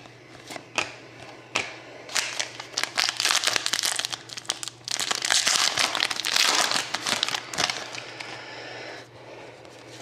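Shiny plastic wrapper of a trading-card pack being opened and crumpled in the hands: a few sharp clicks at first, then dense crinkling and crackling from about two seconds in, loudest in the middle and easing off near the end.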